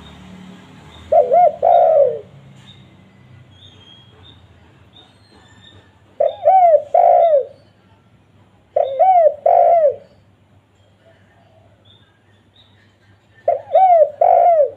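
Spotted dove (tekukur) cooing: four short phrases of two or three arched, hooting notes each, spaced a few seconds apart.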